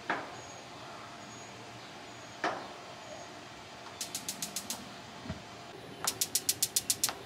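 Traeger Flatrock gas griddle's electronic igniter clicking in rapid runs of about ten sparks a second as a burner is lit: a short run about four seconds in and a longer one near the end. Two single sharp knocks come before it.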